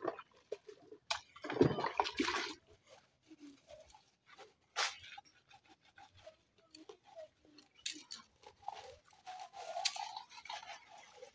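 Plastic cups being scrubbed with a homemade sponge and rinsed by hand in a basin of water: intermittent scrubbing and water sloshing, with light clicks of plastic knocking. The loudest scrubbing and sloshing comes about one to two and a half seconds in.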